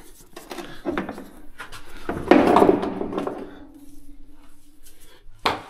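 Metal clanks and knocks from a Porta Power hydraulic ram and its hose being handled against the steel frame, with a louder rough noise about two seconds in that fades into a faint steady hum, and a sharp knock near the end.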